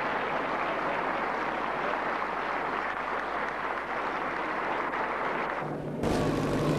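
Audience applauding steadily in a large hall. The applause cuts off suddenly near the end, giving way to a low steady hum.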